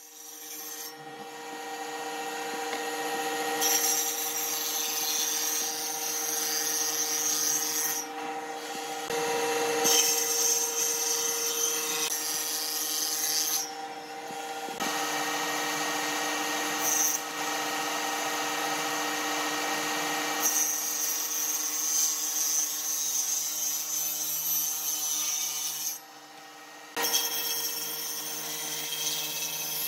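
An electric power tool working wood. Its motor hum is steady, with a rasping cutting or sanding noise over it that comes and goes as the tool bites and eases off. The sound drops away for about a second near the end, then resumes.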